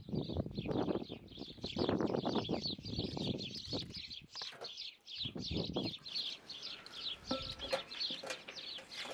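Knife chopping herbs on a wooden board and a red onion worked on a metal box grater, in dense bursts of rapid knocking and rasping for the first three and a half seconds and again briefly about five seconds in. Birds chirp rapidly and steadily throughout.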